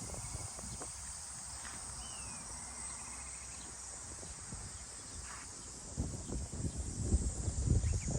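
Steady high-pitched insect chorus with a couple of short bird calls early on. From about six seconds in, low rustling and bumps grow louder.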